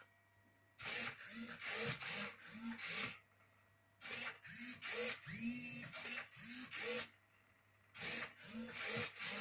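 Hobby servos of a Rubik's cube robot whirring in short strokes, about two a second, as the grippers grip and turn the cube's faces; the strokes come in three runs with short pauses between. The builder suspects the servos are turning a little too fast for the cube.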